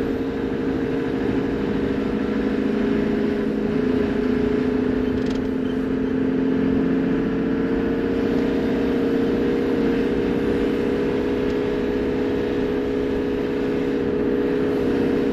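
Toyota Land Cruiser HZJ78's six-cylinder diesel engine running steadily as the vehicle drives slowly, a steady even drone with no change in pitch.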